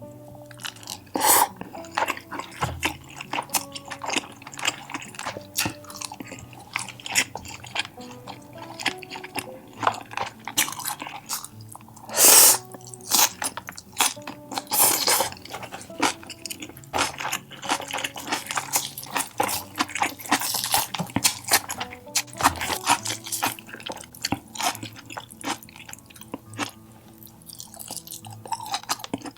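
Close-miked chewing and crunching of food, irregular and continuous, with a couple of louder crunches a little past the middle, over soft background music.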